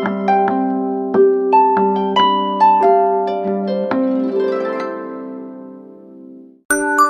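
Samsung Galaxy A-series (2015) alarm tone: a melody of plucked, harp-like notes that slowly fades away. It stops, and near the end a new alarm tone of bright, bell-like mallet notes begins.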